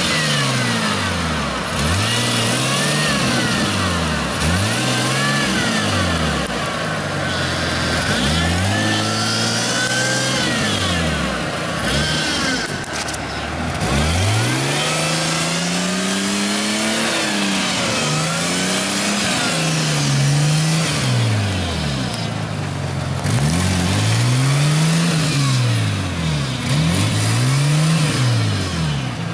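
Off-road vehicle's engine revving hard and dropping back, over and over, about a dozen rises and falls in pitch.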